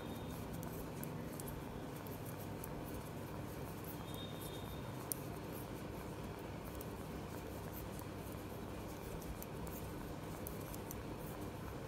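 Knitting needles clicking and tapping faintly as stitches are worked, over a steady low room hum, with one sharper click about five seconds in.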